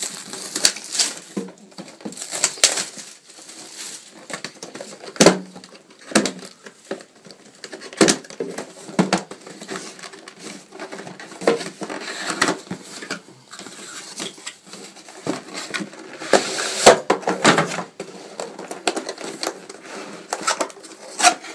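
Cardboard packaging being handled: a printed box sleeve is worked off and the inner cardboard box slid out, with irregular scraping and rustling of cardboard and a few sharper knocks.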